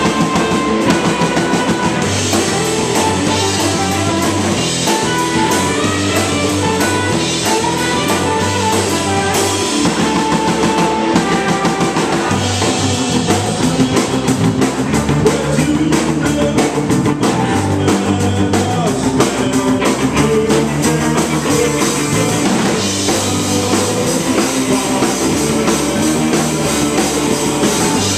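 Live rock band playing loudly: electric guitar, bass guitar and drum kit with cymbals.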